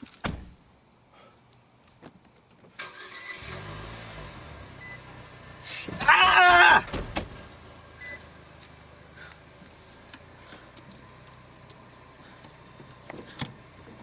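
A thud, then a car engine starts about three seconds in and settles into a steady idle. A loud, pitched blast of about a second sounds around six seconds in, and there are a few light clicks near the end.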